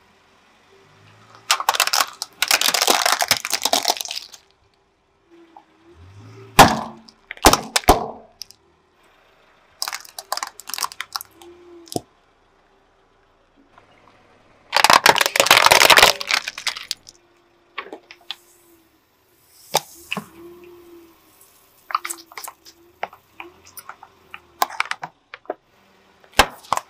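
A car tyre crushing plastic toy cars: loud plastic cracking and crunching in several bursts a few seconds apart, with sharp single cracks between them.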